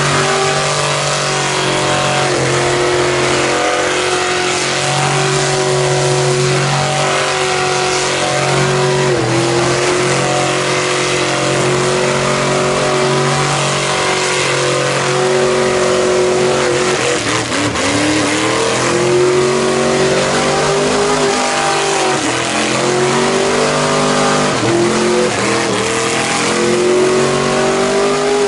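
Mega truck engine held at high revs in a long burnout, tires spinning. It runs as a loud, steady drone whose pitch sags and recovers a few times.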